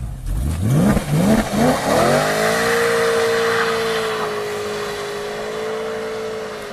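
BMW M3 E92's 4.0-litre V8 accelerating hard from a standstill: the revs rise in three quick sweeps over the first two seconds, then the engine holds a steady high note that slowly fades as the car pulls away.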